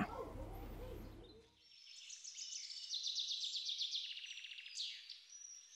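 A faint low background rumble cuts off about one and a half seconds in. Then a songbird sings high, rapid twittering trills.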